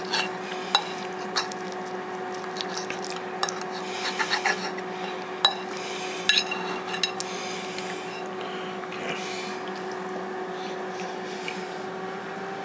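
Metal fork clinking and scraping on a ceramic plate while a fried egg is cut and eaten, with scattered sharp clinks in the first half. A steady low hum runs underneath.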